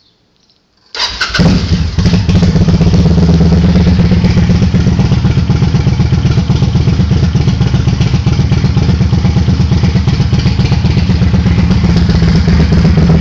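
Kawasaki Vulcan 800 V-twin motorcycle engine starting about a second in, catching at once and then running steadily with a fast, even pulse.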